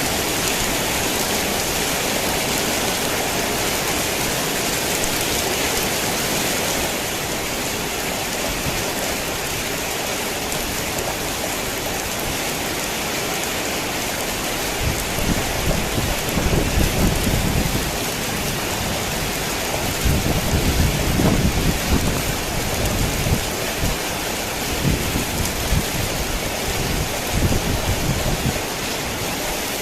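Heavy rain falling steadily on a tin roof, a dense even hiss. About halfway through, thunder starts rolling in low, rumbling surges that come and go several times.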